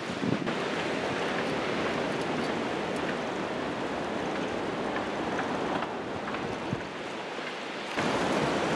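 Ocean surf: a steady rushing wash of noise, which shifts in character near the end.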